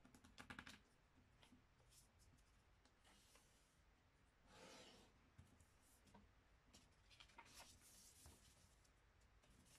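Faint rustling and creasing of a sheet of paper being folded and pressed flat by hand: a cluster of crackly ticks about half a second in, a brief swish of the sheet moving across the table around the middle, and more light ticks near the end.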